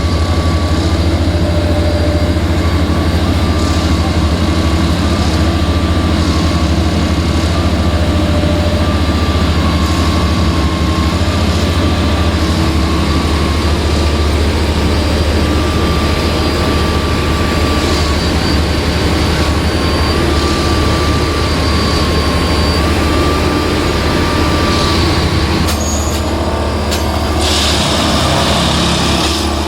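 Plasser & Theurer track-lifting machine running steadily under load, a loud low engine drone with a wavering whine above it. A short hiss comes near the end.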